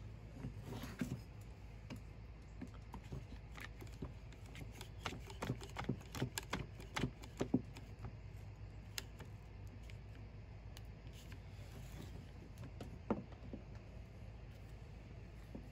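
Plastic one-handed bar clamp and spring clamps being handled and clamped onto a garden-tractor brake band: quick irregular clicks and light knocks, thickest in the middle, then a single click later on.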